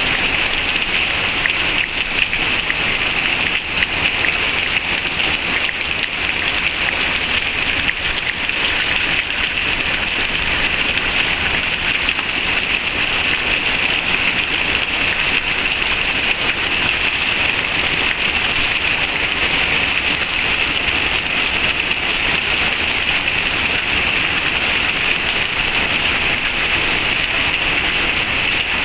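Heavy rain pouring down, a dense, steady hiss of rain falling on the road, roofs and paving.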